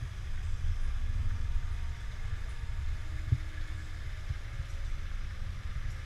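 Low, gusting rumble of wind and handling noise on the microphone of a camera carried along on foot, with one short knock about three seconds in.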